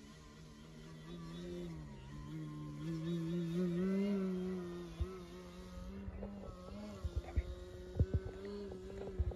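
Electric brushless motor (EF 4016T/500) and 15x8 propeller of an Extreme Flight 60-inch Laser RC aerobatic plane droning in flight. The pitch and loudness rise about three seconds in as it throttles up and comes closer, then hold steady. Short sharp knocks on the microphone come in the last few seconds.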